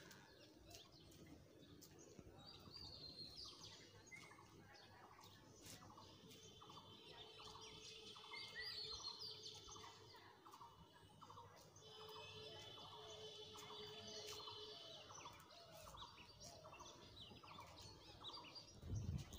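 Faint birds calling in the distance: a long run of short repeated notes at about two a second, with scattered higher chirps over it. A soft low thud near the end.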